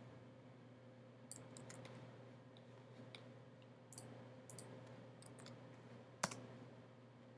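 Faint, scattered clicks of a computer mouse and keyboard over a low steady hum, with one much louder click about six seconds in.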